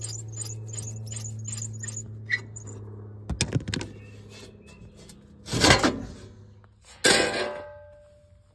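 Ditch Witch trencher's steel floor plate being worked loose with clanks and knocks, then set down on gravel about seven seconds in with a sharp clang that rings briefly. A steady low hum runs underneath until the clang.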